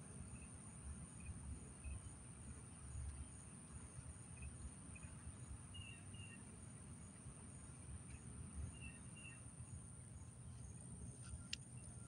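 Faint outdoor insect ambience: a steady high-pitched drone with scattered short chirps, over a low rumble on the microphone. A couple of sharp clicks near the end.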